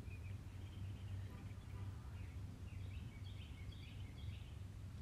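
Faint outdoor background: a steady low rumble, with a few faint bird chirps a little past halfway.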